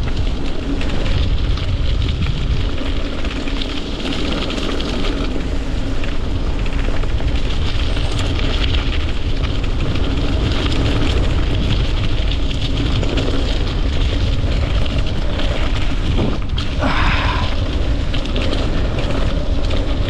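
Mountain bike rolling fast over a dirt and leaf-covered trail: wind buffeting the handlebar camera's microphone over the rumble and crunch of knobbly tyres, a loud steady rush. A brief higher-pitched sound stands out about three seconds before the end.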